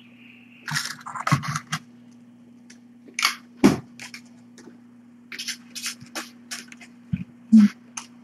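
Scattered short scratching and rustling noises, a few with a soft thump, over a steady low electrical hum.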